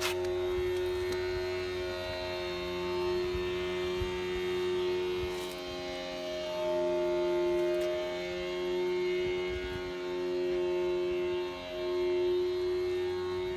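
Background music: long sustained notes over a steady low drone, with the notes changing slowly.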